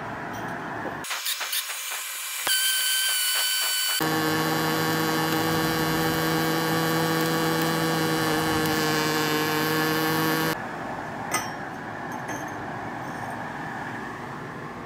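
Pulsed-arc MAG welding with 1 mm wire: the arc runs for about six seconds as a steady buzz at one fixed pitch, then cuts off suddenly. It is preceded by a short stretch of crackling as the arc starts. The steady, even arc on dirty, uncleaned steel is what the welder takes as the sign of a high-quality wire.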